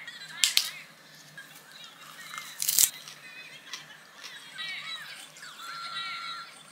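Crisp lettuce wrap crunching: two short, loud crunches, about half a second in and again near three seconds in, over faint high chirping.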